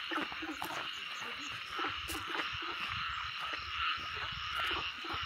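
Steady night chorus of frogs and insects, a dense unbroken high buzz, with scattered soft low knocks of footsteps and a handled bucket close by.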